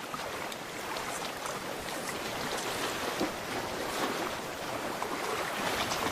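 Sea water washing over a rocky shore at low tide: a steady rush of small waves with faint crackles scattered through it.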